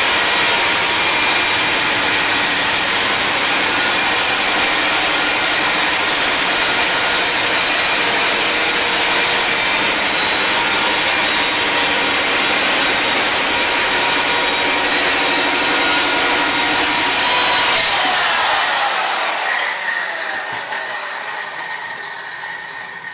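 Handheld circular saw cutting through a PVC-coated panel along a clamped guide rail, running at a steady pitch. About eighteen seconds in it is switched off and the blade winds down, its pitch falling away.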